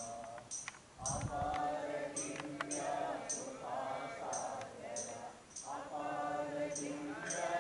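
Voices chanting a devotional song in long sung phrases, with a short pause about a second in, and a high metallic clink repeating in a steady beat.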